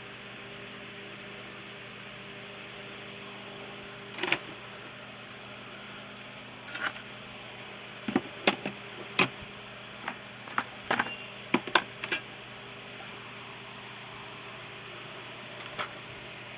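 Scattered clicks and clacks of hand tools being handled and set into a small toolbox, about a dozen in all, most of them between about eight and twelve seconds in, over a steady hum.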